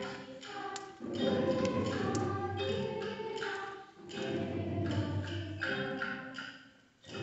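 Live music from a small school ensemble, in melodic phrases about three seconds long with short breaks between them.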